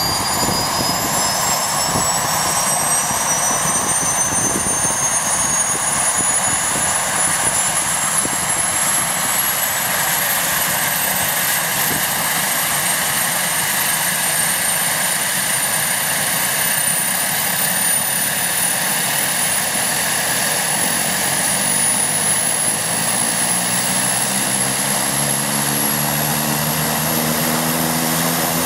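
Piper M600's Pratt & Whitney PT6A turboprop engine starting: a high turbine whine rises steadily in pitch over a steady rushing noise as the engine spools up and the propeller speeds up. Lower propeller tones come in near the end.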